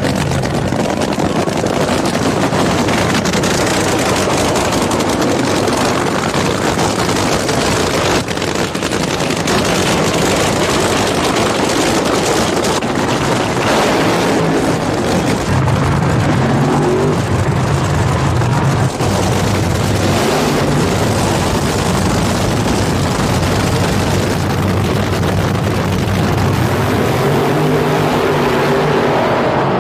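Supercharged, nitromethane-burning funny car engines running loud: a burnout, then the cars idling and revving as the pair backs up and stages at the start line.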